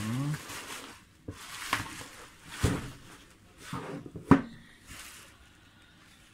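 Bubble wrap rustling and a cardboard box knocking against a table as the box is pulled out of the wrap and set down: a handful of sharp knocks, the loudest about four seconds in.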